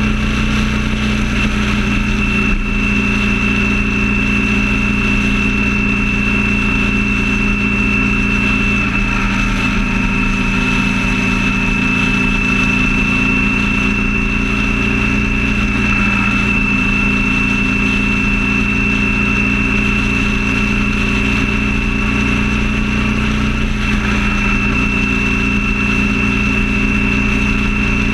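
Vehicle engine running steadily at freeway cruising speed, its drone holding one pitch, with a constant high whine above it and a rush of road and wind noise.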